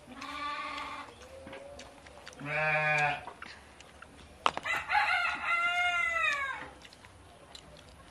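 A rooster crowing: two shorter calls, then a long loud crow about halfway through that falls in pitch at its end.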